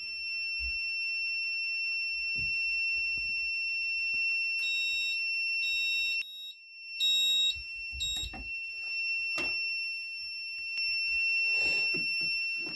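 Advanced Go fire alarm panel's buzzer sounding a steady high tone, signalling a fault after the emergency door release has been operated. The tone breaks off for under a second about six seconds in, and a second, higher beep comes and goes around the middle.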